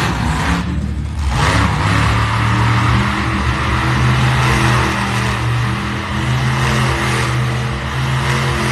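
Monster truck engine running hard at high revs, a loud steady drone, after a sharp bang right at the start.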